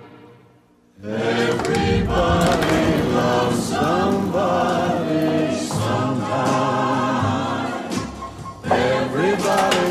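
Music: a held string chord fades out, and about a second in a choir starts singing over accompaniment, with a brief lull near the end.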